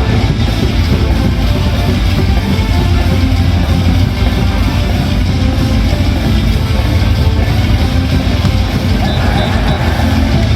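Loud rock music with electric guitar and a heavy, steady low end, playing without a break.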